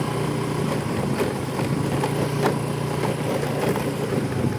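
Small motorbike engine running at a steady speed, heard from on the moving bike.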